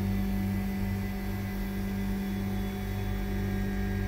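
CTS T-70/350 temperature test chamber running: a steady low hum with a fainter high tone above it.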